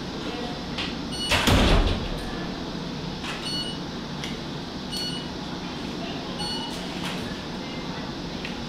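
Operating-theatre background: a steady hum with short, faint electronic beeps every one and a half to two seconds. A brief loud rustle comes about a second and a half in.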